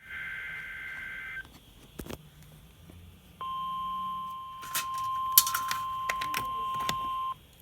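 Emergency Alert System signal on NOAA Weather Radio: a burst of warbling two-pitch SAME data tones, then after a short pause the steady single-pitch warning alarm tone for about four seconds, which cuts off abruptly. It marks the start of a flash flood warning broadcast, and a few clicks sound over the tone.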